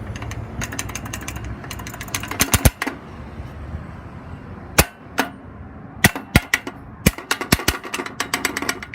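Crosswalk push button being pressed over and over: rapid runs of sharp mechanical clicks with single clicks between them, over low traffic rumble.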